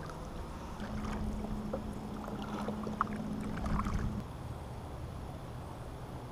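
Kayak paddle strokes and water moving along a plastic fishing kayak's hull, with a few light knocks. A low steady hum runs from about one second in to about four seconds in.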